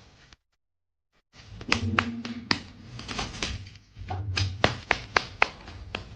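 A series of irregular sharp taps and knocks, about a dozen, starting after a second of silence.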